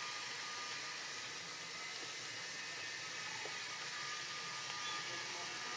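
Steady outdoor background hiss with a faint, steady high tone running through it. Nothing sudden stands out.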